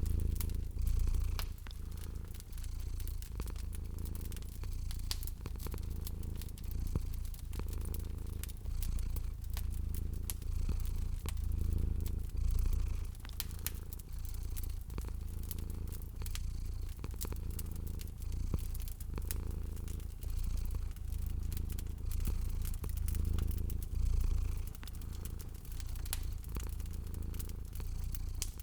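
Domestic cat purring steadily in a low rumble that swells and fades in slow, even cycles, with a wood fire crackling throughout in many small sharp pops.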